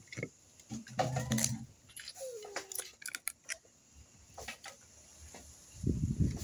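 Crab shells being cracked and picked apart by hand while eating: scattered sharp clicks and snaps, with a short low voice-like sound about a second in and a louder crunching near the end.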